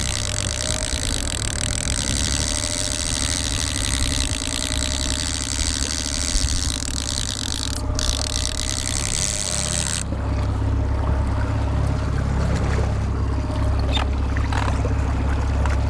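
Boat's outboard motor running steadily at trolling speed, a low even hum under a hiss. The hiss drops away about ten seconds in, leaving the engine hum.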